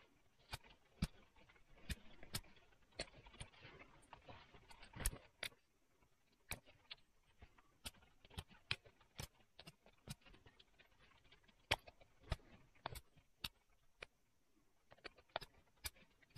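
Pressure flaking flint with a moose-antler tip: sharp little clicks and snaps as flakes pop off the edge of a Swedish flint axe, coming irregularly about one or two a second. There is a stretch of rasping about three to five seconds in, and the loudest snaps come about five and twelve seconds in.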